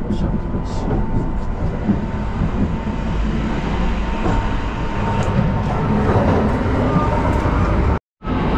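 Kintetsu Ise-Shima Liner electric train running at speed, heard inside a passenger car: a steady low rumble of wheels on rail with a faint steady whine and light rattles. The sound drops out for a moment near the end.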